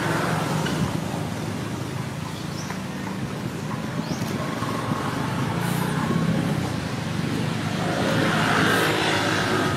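Steady low rumble of background road traffic, growing a little louder near the end.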